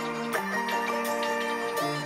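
Background music: sustained chords with quick, lightly struck notes over them; the chord shifts about half a second in and again near the end.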